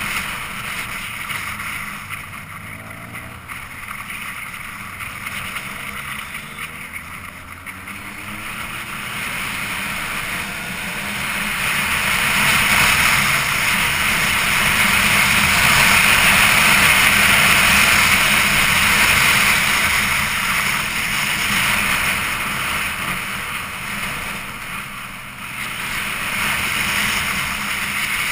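Wind rushing over the microphone of a camera on a moving motorcycle, with the engine running underneath; the wind noise grows louder through the middle as the bike gathers speed, then eases.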